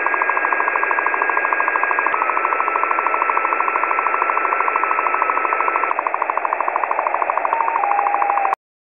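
Harsh electronic hiss pulsing rapidly, about a dozen times a second, under a thin held whistle that steps down in pitch a few times; it all cuts off suddenly near the end.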